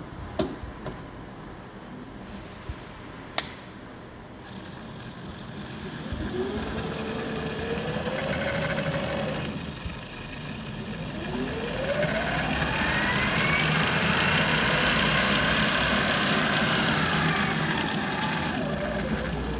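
Avey drill press motor and spindle spinning up with a rising whine, running for a few seconds and winding down. It then starts again and climbs to a higher whine, runs steadily for several seconds, and winds down near the end. Two sharp clicks come in the first few seconds.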